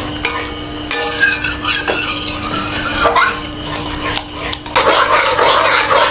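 Metal ladle stirring and scraping through thick, nearly finished milk pudding in a pan, the strokes louder near the end.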